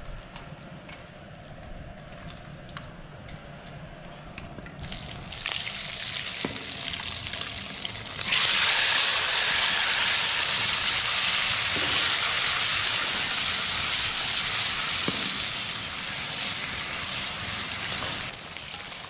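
Food frying in a hot pan: a light crackle from about five seconds in swells suddenly into a loud, steady sizzle about eight seconds in, which eases off shortly before the end.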